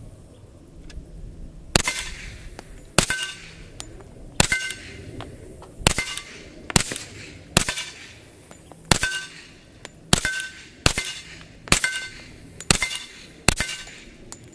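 Suppressed Heckler & Koch Mk 23 .45 ACP pistol with a Knight's Armament suppressor fired in slow, aimed single shots, about a dozen in all at roughly one shot a second. The spacing is uneven, and each shot has a short ringing tail.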